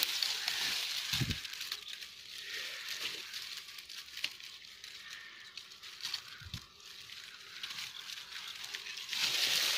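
Brush and dry twigs rustling and crackling as someone moves through scrub, with scattered small clicks and two dull thumps, one about a second in and one about six and a half seconds in.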